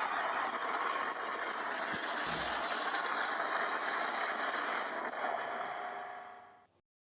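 A steady, dense mechanical noise that fades out over the last second and stops.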